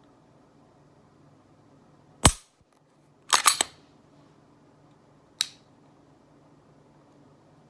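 Glock 35 .40 S&W pistol firing one loud shot about two seconds in, followed a second later by a quick rattle of three or four metallic clicks and, about two seconds after that, a single sharp click.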